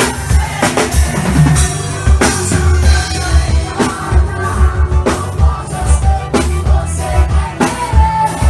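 Live forró band playing with a steady drum-kit beat and pulsing bass under the melody instruments.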